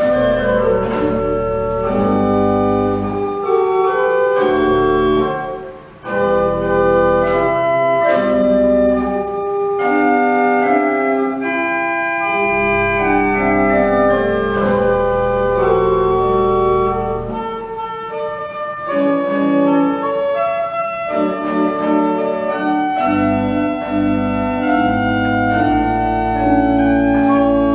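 1874 pipe organ playing a piece in sustained chords, with deep bass notes joining and dropping out. There is a brief break in the sound about six seconds in.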